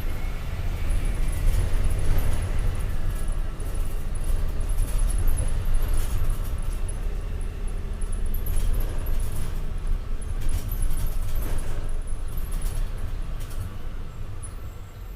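MAN D0836 six-cylinder turbodiesel of a Volkswagen Volksbus 17.260 ODS bus chassis running, a steady deep rumble with scattered rattles and clicks. It eases off slightly near the end.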